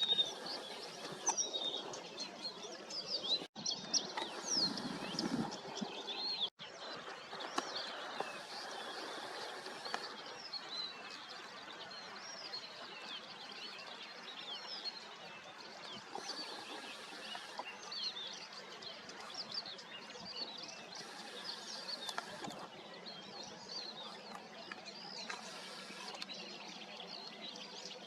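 A chorus of many small birds chirping and calling over a steady background hiss. The sound drops out briefly twice near the start.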